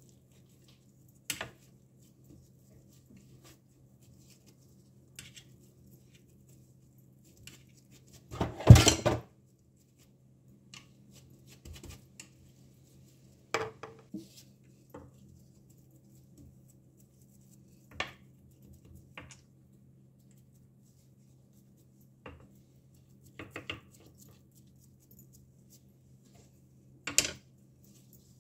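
Scattered clinks and scrapes of a table knife against a ceramic serving platter, with one louder clatter of dishes lasting about a second near nine seconds in, over a low steady hum.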